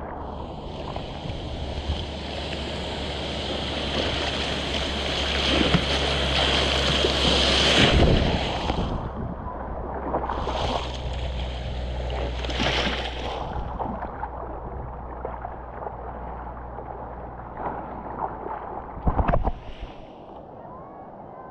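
Ocean surf and rushing whitewater close around a helmet-mounted GoPro, with wind buffeting the microphone. The rush swells twice, and sharp splashes hit about eight seconds in and near the end.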